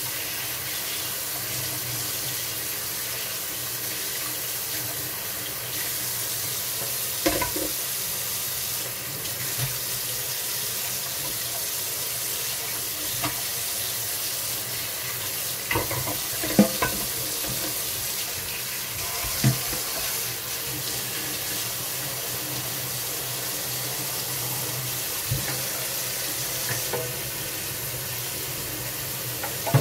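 Water running steadily from a kitchen tap into a sink, with a few scattered knocks and clinks of dishes or utensils, the loudest at the very end.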